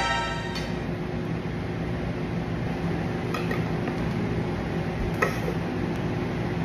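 Room tone: a steady low hum with a couple of faint clicks about three and five seconds in. A loud tone from just before fades out in the first half second.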